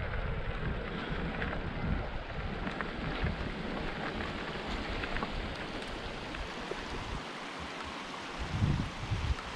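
Wind buffeting the microphone of a camera carried on a moving mountain bike, over a steady rushing hiss with faint small rattles. The low rumble eases about seven seconds in, then gusts back louder near the end.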